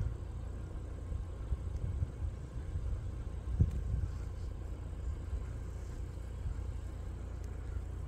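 Wind buffeting the microphone: an uneven low rumble with a stronger gust about three and a half seconds in.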